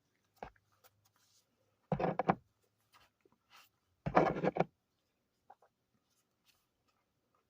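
Two short bursts of scratchy handling noise about two seconds apart, with a few faint clicks in between.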